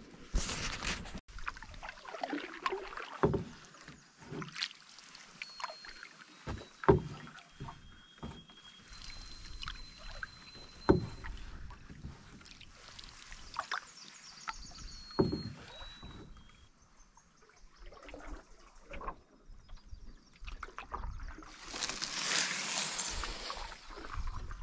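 Canoe paddling on calm water: paddle strokes dipping and pulling through the water, with sharp wooden knocks of the paddle against the cedar-strip canoe, the strongest about every four seconds. A longer swishing rush comes near the end.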